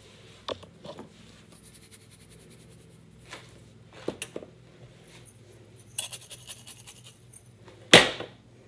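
Kitchen handling sounds: a few light knocks and clicks, a short run of sharper clicks about six seconds in, and one loud knock with a brief ring near the end.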